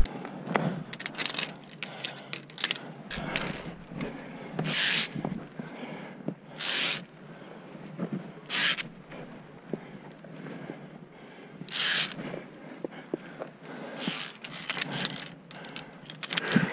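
Via ferrata carabiners clinking and scraping along the steel safety cable, with boots scuffing on rock, as a climber moves along the route. Short hissing bursts come every two seconds or so, and scattered clicks thicken near the end.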